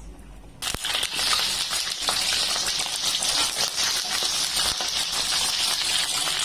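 Small flour-battered fish deep-frying in hot oil in a wok: a loud, dense sizzle full of crackles that starts abruptly about half a second in and then holds steady.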